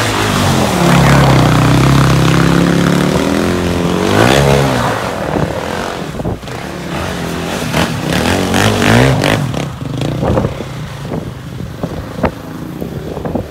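KTM 450 SX quad's single-cylinder four-stroke engine revving hard while the quad spins donuts on ice. The pitch climbs about a second in and holds high, drops around four seconds, then comes back in a series of shorter revs. The engine grows fainter near the end as the quad pulls away.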